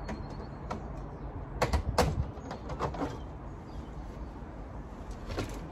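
Knocks and clatter of a plastic boot-floor trim panel being unclipped and lifted out of a BMW E91's boot to reach the battery, the loudest knocks about two seconds in and a few lighter ones later.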